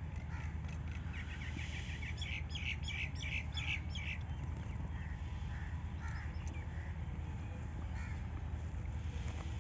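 Birds calling: a quick run of repeated calls, about four a second, from about a second to four seconds in, then scattered single calls, over a steady low rumble.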